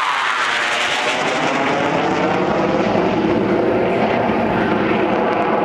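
RAF Hawk jet trainer's single Adour turbofan engine flying past overhead. A loud jet rush falls in pitch near the start as the aircraft passes, then settles into a steady rumble as it draws away.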